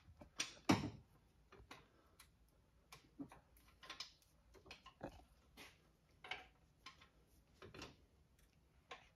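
Ratchet wrench clicking faintly in short, irregular strokes as a just-loosened block-to-bell-housing bolt is backed out; the bolt is still stiff through its whole length.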